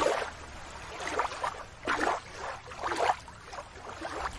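Shallow water lapping and splashing at a shoreline, a series of irregular swishes about once a second.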